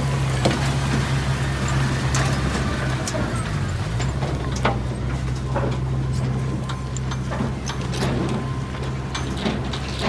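Komatsu mini bulldozer's diesel engine running steadily, its pitch dipping briefly about three and a half seconds in, with scattered sharp clicks and clanks throughout.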